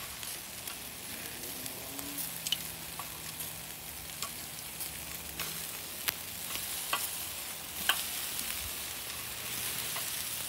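Pork pieces sizzling over hot coals on a charcoal kettle grill as they are turned with metal tongs: a steady hiss with scattered sharp pops and clicks.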